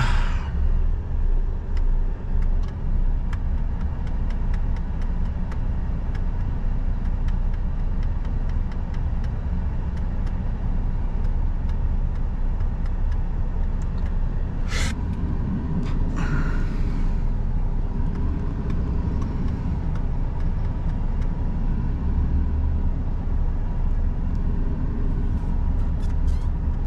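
Tatra Phoenix tipper truck's diesel engine and road rumble heard steadily from inside the cab. A sharp click comes about 15 seconds in, followed by a short hiss.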